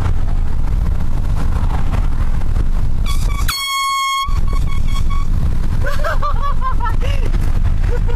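An air horn blasts once, about three seconds in, as a steady high tone lasting around a second and a half, over a constant low rumble.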